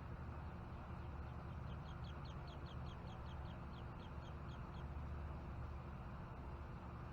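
A bird calling: a rapid run of short, high notes, about five a second, starting about a second in and stopping after about three and a half seconds. A steady low rumble runs underneath.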